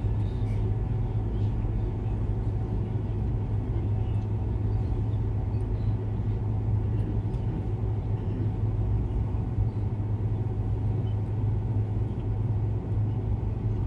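Steady low hum with a constant room rumble beneath it. The lowest tone is the strongest, with fainter steady tones above it, and nothing starts or stops.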